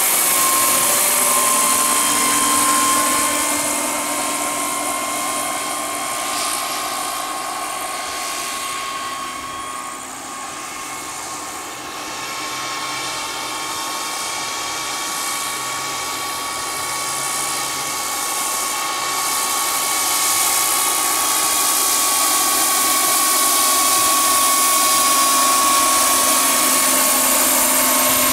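Turbine-powered scale model Sikorsky S-64F Skycrane helicopter in flight: a steady high turbine whine over rotor noise. It fades as the model moves away, about a third of the way in, and grows louder again toward the end.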